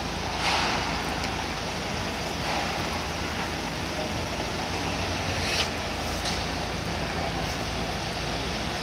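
Steady rushing noise of wind on the microphone, with a few faint brief rustles.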